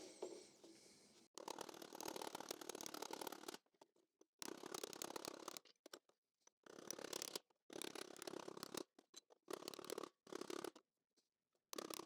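Pneumatic air chisel fitted with a chasing tool, run in about six short bursts of rapid hammering as it chases steel sheet down into a forming tool.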